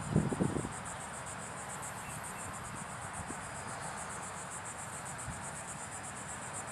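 Insects chirring in a steady, high, fast-pulsing chorus, with a few low thumps in the first half second.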